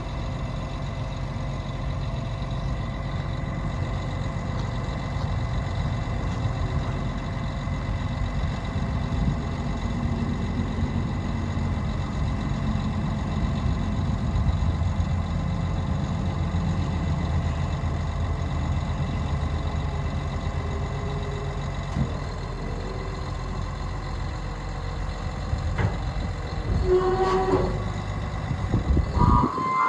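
John Deere 950J crawler dozer's diesel engine running steadily under operation, a deep, even rumble. A few brief higher-pitched sounds come in near the end.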